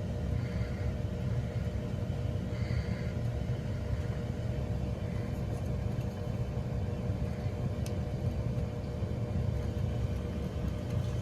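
System 2000 boiler running: a steady low rumble with a faint steady hum, and a couple of faint clicks.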